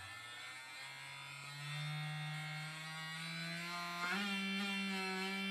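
Small brushed vibration motor from a cheap electric toothbrush buzzing on a floating foam hull as the throttle is raised; its pitch steps up about a second in and again around four seconds in. The higher speed is too fast for the resonance that drives the boat forward, so it stops moving.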